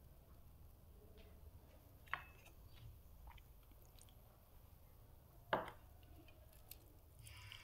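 Close-miked mukbang eating: a person chewing a mouthful of chicken biryani, with a few short sharp mouth clicks, the loudest about five and a half seconds in.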